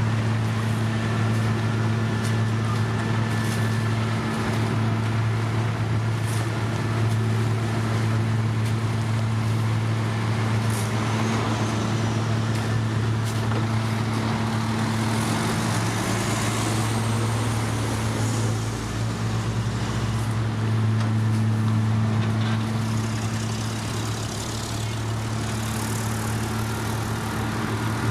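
Engine of heavy road-construction machinery running steadily at a constant speed, with a faint second engine briefly rising in pitch about halfway through.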